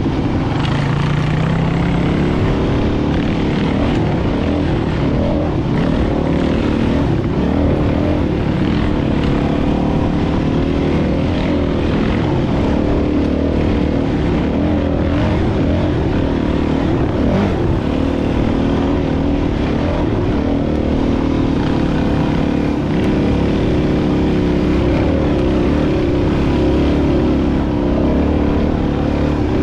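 Dual-sport motorcycle engine running under constantly changing throttle, its pitch rising and falling as the bike works along a rutted dirt trail.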